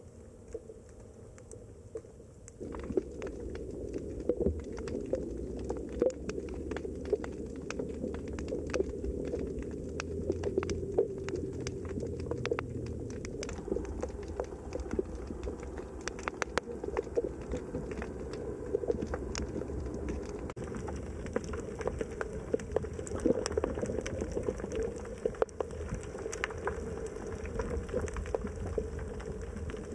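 Underwater ambience: a dense crackle of scattered sharp clicks over a low rumble, getting louder about three seconds in.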